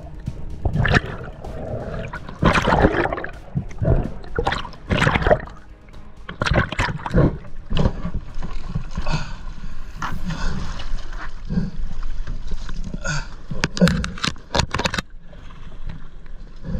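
Irregular splashing and gurgling of water against an action camera, coming in uneven surges.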